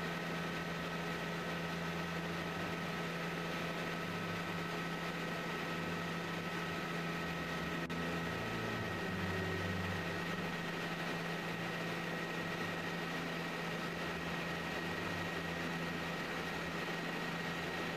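Helicopter noise heard inside the cabin: a steady drone of engine and rotor with a low hum and a constant high whine running through it.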